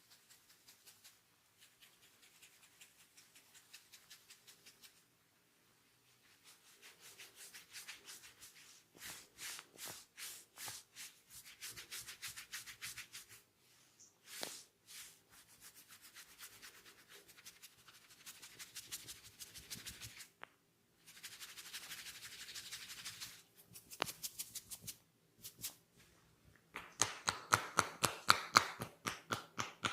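Head massage: hands rubbing the scalp and hair in quick, rhythmic strokes, much louder in the last few seconds.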